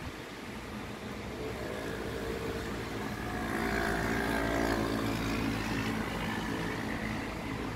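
A car passing on the rain-wet road: tyre hiss on wet asphalt with an engine note, swelling to its loudest about four to five seconds in and then fading, over a steady hiss of rain.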